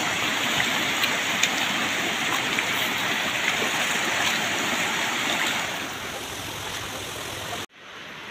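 Mountain stream rushing and splashing over rocks, a steady roar of water. It softens a little after about six seconds, then cuts off abruptly near the end.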